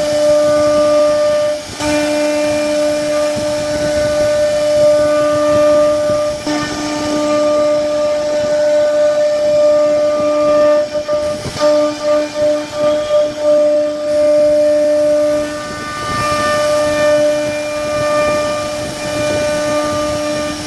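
CNC router spindle whining at a steady pitch, with a hiss, as the bit carves grooves into a wooden panel. The tone breaks off briefly and picks up again a few times.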